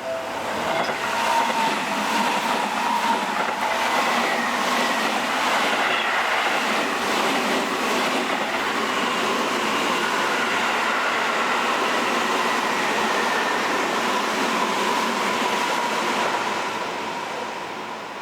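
Seibu Railway electric train passing close by, its wheels clattering over the rails with a faint whine on top. It builds quickly in the first second, stays steady, then fades away near the end.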